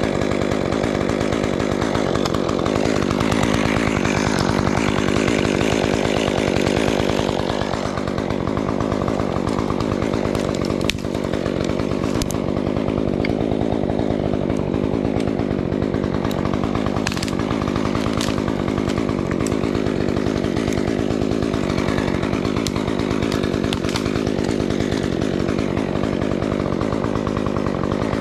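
Chainsaw engine running steadily and continuously, with a few sharp clicks scattered through it.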